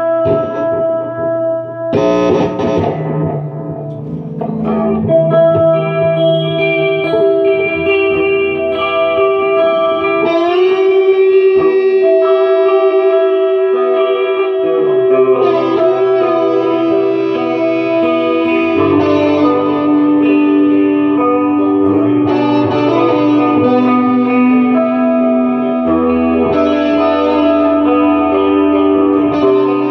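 Instrumental music: an electric guitar played through effects, with long, sustained, layered notes that change every few seconds and a gliding rise in pitch about ten seconds in.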